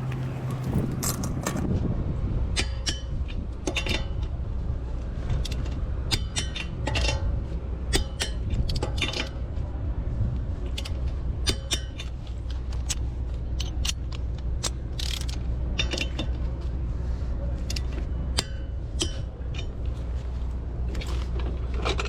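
Metal tools and parts clinking and clanking in many separate knocks, some ringing briefly, over a steady low engine hum.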